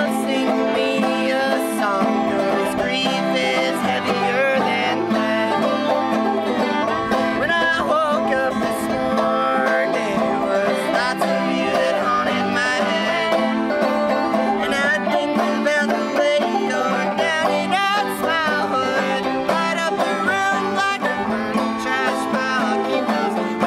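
Acoustic string band playing a bluegrass-style tune, with banjo picking prominent and no singing in this stretch.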